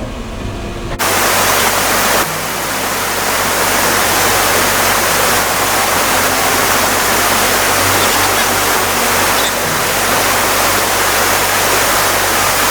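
Steady rush of falling water from a waterfall, cutting in suddenly about a second in and holding even throughout.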